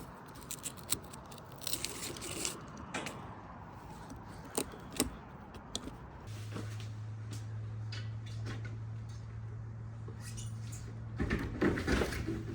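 Scattered clicks, knocks and scrapes of hands and tools on metal as a roof basket is taken down off a car's roof, with a louder clatter near the end. A steady low hum comes in about six seconds in.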